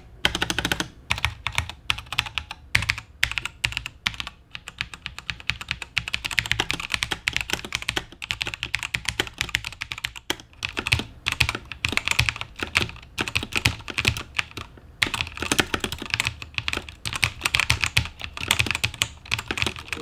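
Fast typing on a Razer BlackWidow TE tenkeyless mechanical keyboard with linear Razer Yellow switches and its stock ABS keycaps, the key strokes coming in quick runs broken by brief pauses. The caps give it a slightly plastic sound.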